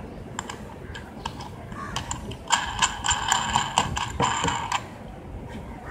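A metal nut being turned by hand on a threaded bolt set in a wooden board: quick metallic clicks and rattles, densest and ringing from about two and a half to nearly five seconds in.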